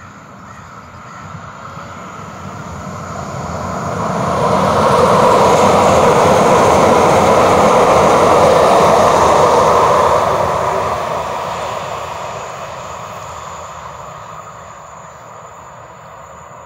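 A train passing by: running noise that builds over about five seconds, stays loud for about five seconds, then fades away.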